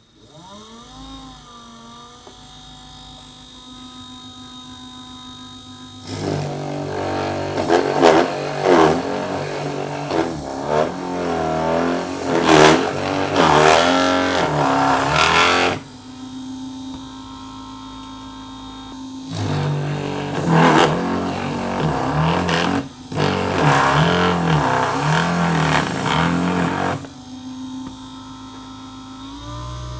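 Small DC drill motor on a mini drill press spinning up in the first second and then running steadily, powered from a solar panel through a PWM speed controller at a low setting. Twice, for about ten and eight seconds, a step drill bit cuts into a black project box, the sound louder and wavering in pitch under load, with the motor running steadily between and after.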